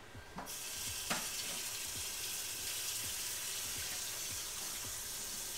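Kitchen sink faucet turned on about half a second in, then running steadily into the sink.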